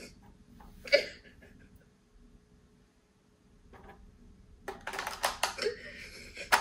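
Light clicks and taps of an eyeshadow palette and makeup brush being handled: one sharp click about a second in, then a quick run of clicks in the last two seconds.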